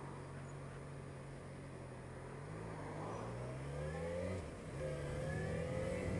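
Motorcycle engine running steadily, then revving up as it accelerates. About four and a half seconds in, the pitch drops at a gear change, then rises again.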